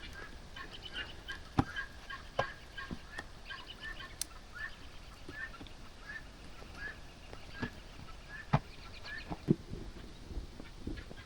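A bird's short call repeated about twice a second, with a few sharp knocks scattered among the calls.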